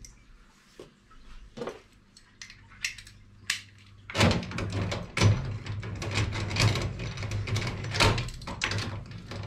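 A few light clicks, then from about four seconds in a busy run of knocks and clicks: metal parts and a socket being handled while casters are bolted onto the base of a steel tool chest.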